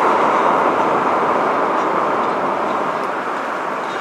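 Steady rushing road and wind noise of a car travelling at speed with the side window open, growing gradually quieter.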